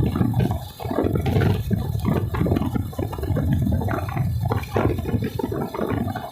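Water rushing and splashing continuously, unsteady in level.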